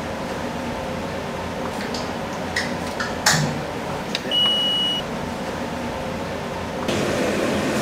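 A single electronic beep: one steady high tone lasting under a second, heard over a steady background hum. A brief knock comes about a second before the beep, and the hum grows louder near the end.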